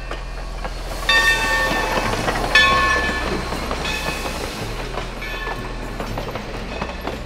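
Steam locomotive and its passenger coaches passing close by, with wheels clattering on the rails. A ringing tone of several pitches repeats about every second and a half, loudest around the first three seconds.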